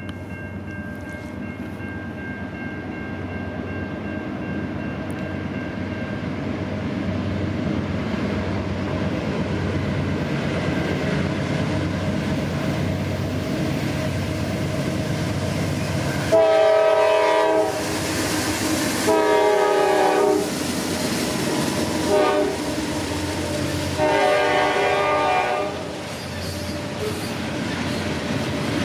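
Two GE Dash 9-44CW (C44-9W) diesel locomotives heading a loaded coal train, their engine rumble growing louder as they approach. Then the horn sounds long, long, short, long, the standard grade-crossing signal, and near the end the loaded coal hoppers roll past.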